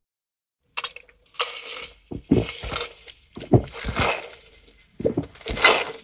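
Drinking through a straw: a series of about six gurgling slurps, each a noisy suck with low bubbling thuds, starting about a second in.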